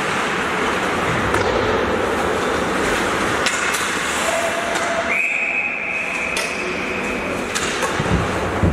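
Ice rink game ambience with a few sharp stick-and-puck clacks, then a referee's whistle blown about five seconds in: one long, steady, high blast of about two and a half seconds that stops play.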